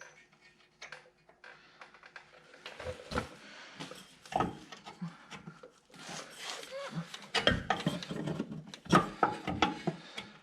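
Irregular clanks, knocks and scrapes of tools and metal parts being handled under a car during a rear shock install. A few light clicks come first, and the clatter grows busier and louder from about three seconds in.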